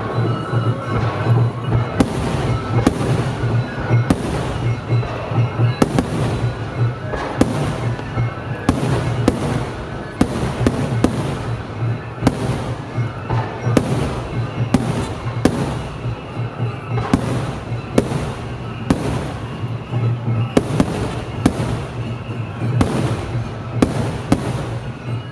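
A large star mine fireworks barrage: shell bursts bang in quick succession, about one to two a second, with crackling between them, over music playing underneath.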